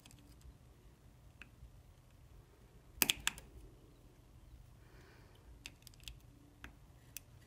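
Faint clicks and light taps of a multimeter probe and small screwdriver on a 3D printer's mainboard while a stepper driver's Vref trimmer pot is set. The loudest is a quick pair of clicks about three seconds in, with a few single clicks near the end, over a low steady hum.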